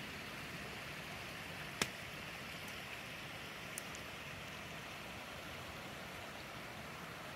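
Steady hiss of surf washing over a rocky ocean shoreline, with one sharp click about two seconds in.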